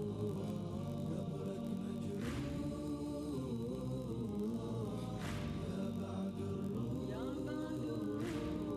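Arabic devotional chant sung by voices without instruments, with long held notes that slide in pitch and a soft hissing stroke about every three seconds.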